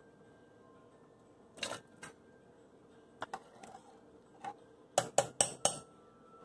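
Cooking handling sounds at an aluminium pressure cooker: a short rattle as chopped potato cubes are tipped in, a few light clicks, then four sharp clicks in quick succession near the end, the loudest sounds here.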